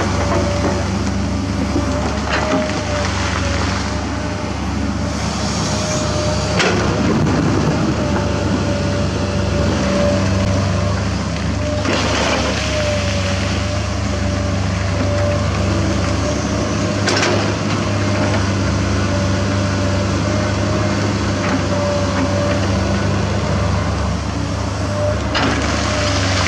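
Hydraulic excavators' diesel engines running steadily under digging load, with a steady whine over the engine hum. Now and then the bucket knocks sharply against loose limestone rock.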